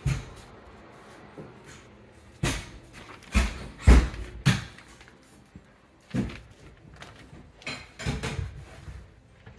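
A series of about a dozen irregular dull thumps and knocks, the loudest clustered around the middle, with quiet room tone between them.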